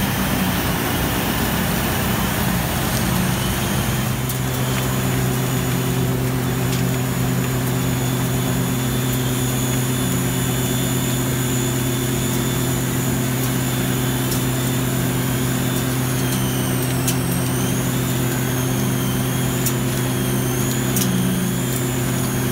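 Engine of concrete conveyor machinery running steadily with a low hum. The sound changes about four seconds in, and a faint wavering high whine comes and goes near the end.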